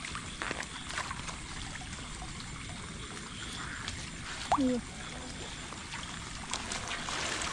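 Water trickling and running, with scattered small splashes and knocks, and a brief voice about four and a half seconds in.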